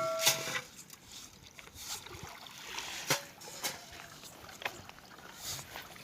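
A metallic ring dies away in the first half-second, then scattered light knocks come over faint water sloshing.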